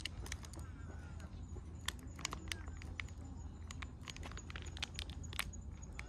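Plastic cat-food pouch being handled, giving irregular sharp crinkles and clicks, over a steady low rumble.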